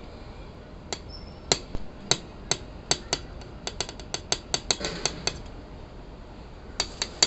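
Brass no-touch key tapping repeatedly on a door-entry touchscreen, about twenty sharp clicks in quick uneven runs with a pause before a last few taps. The screen is not registering the taps.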